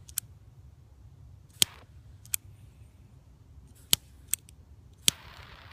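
Premium Spark multi-tool lighter's igniter clicking six times at uneven intervals, each a sharp snap, as it fails to produce a flame. A short hiss comes with the last click near the end.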